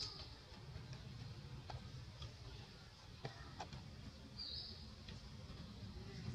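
Faint scattered clicks and small rustles of macaques moving and handling food among dry leaves and tree roots, with one short high squeak about four and a half seconds in.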